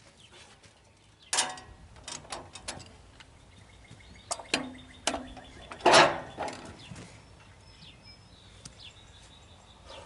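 Sharp knocks and metal clanks from working a heavy log onto a portable sawmill's steel bed, a string of separate hits over a few seconds, a couple ringing briefly, the loudest about six seconds in.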